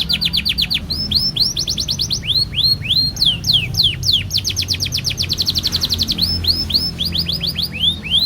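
Domestic canary singing a long unbroken song: fast trills of rapidly repeated falling notes alternate with slower runs of sweeping whistled notes.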